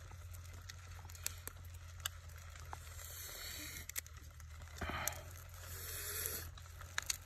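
Scattered small crackles and clicks of dung beetles' hard shells being pulled apart by fingers, with a short rustle about five seconds in.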